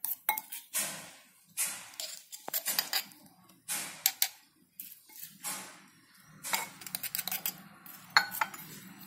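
Steel spoon scraping and clinking against a bowl and a glass jar while spooning food from the bowl into the jar, in short irregular strokes.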